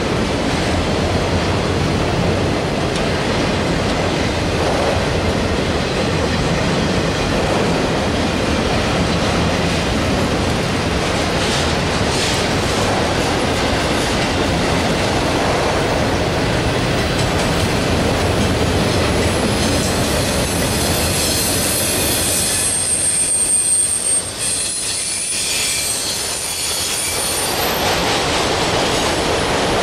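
Freight train rolling past, a steady rumble of wheels on rail. About two-thirds of the way through, a high-pitched wheel squeal comes in for several seconds while the rumble briefly falls away, then the rumble returns near the end.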